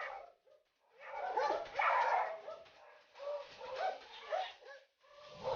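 Doberman whining and yelping in several wavering, high-pitched cries, with short pauses between them.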